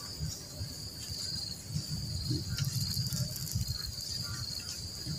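Insects calling in a steady, high-pitched chorus that pulses slightly, over a low, uneven rumble.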